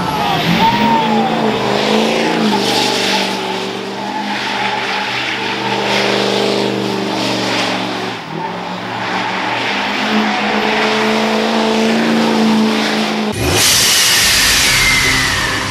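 Diesel Ford F-350 dually's engine revving hard, its pitch rising and falling as it spins donuts, with the rear tires spinning and squealing on the pavement. About thirteen seconds in it cuts off abruptly to a loud rushing intro sound effect with a falling tone.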